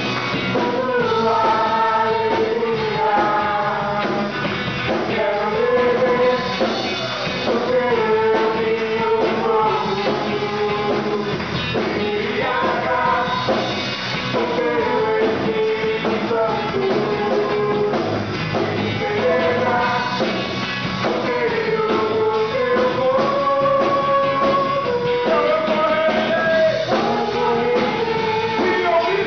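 Rock-style music with singing: a voice holding long notes over a full band accompaniment.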